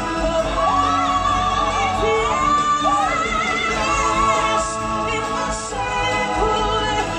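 Live stage-show vocalists singing long, sweeping held notes over backing music.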